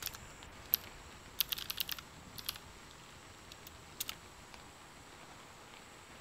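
Computer keyboard being typed on: sharp key clicks in short irregular bursts, the last pair about four seconds in, over a faint steady hiss.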